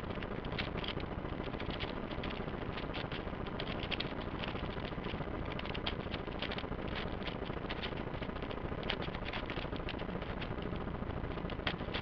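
A 5x5 Rubik's Cube being scrambled by hand: its plastic layers turn in quick succession, giving a fast, uneven run of clicks and clacks over a steady hiss.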